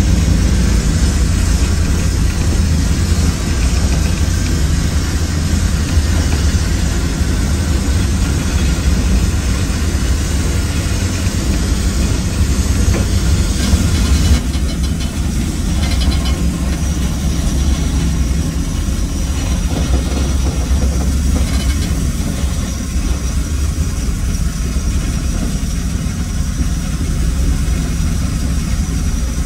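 Steady heavy rumble of a Mount Washington Cog Railway steam train moving on its rack track, heard from inside the wooden passenger coach. The high hiss lessens about halfway through.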